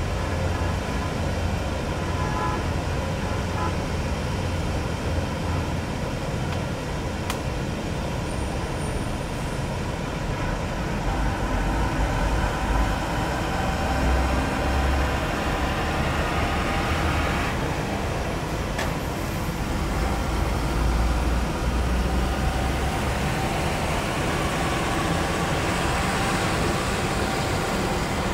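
Steady jet-engine rumble and whine from an airliner taxiing at low power. A broader rush swells in about halfway through and holds to the end.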